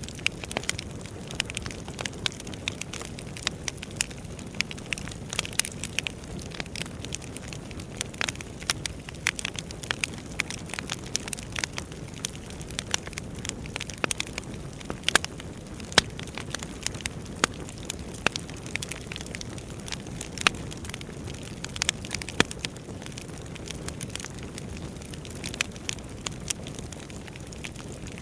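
Wood fire burning, with a steady low rumble and frequent irregular crackles and pops from the burning logs.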